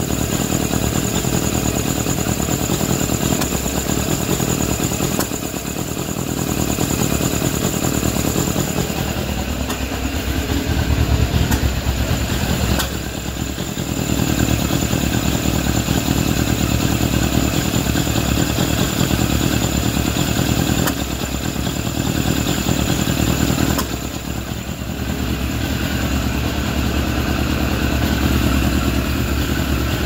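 Suzuki GSF600 Bandit's inline-four engine idling unevenly, its note sagging and picking back up several times. The intake boot clamps on the carburetors are left loose, letting in a vacuum leak that makes the idle erratic.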